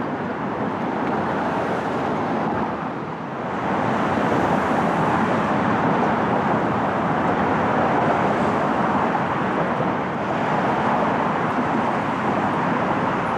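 Steady road-traffic noise from cars on the Brooklyn Bridge roadway below the walkway, a continuous hiss of tyres and engines that grows a little louder about three and a half seconds in.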